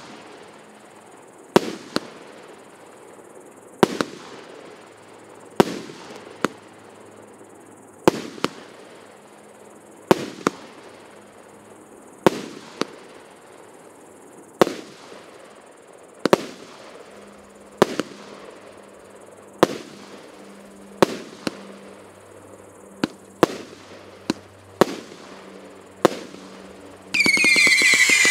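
48-shot firework cake (PC9030 'Narodny', 0.8 to 1.2 inch shots) firing one shot every one and a half to two and a half seconds, each a sharp bang, some with a second report just after. Near the end a rapid volley goes off with a loud whistle falling slightly in pitch.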